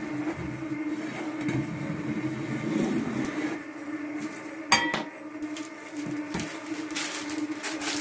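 Stand mixer motor running steadily as it whisks butter and sugar. About five seconds in comes a sharp metallic clink, followed by a few lighter knocks as the metal cake tin and pencil are handled on the worktop.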